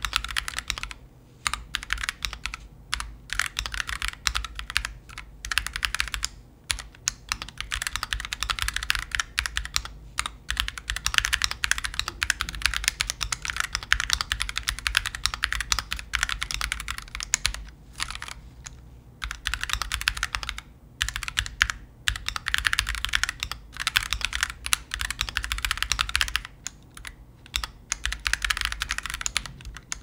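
Typing on an Akko ACR Pro Alice Plus ergonomic mechanical keyboard with Akko CS Crystal linear switches and full internal sound dampening: fast, continuous keystrokes with a few short pauses.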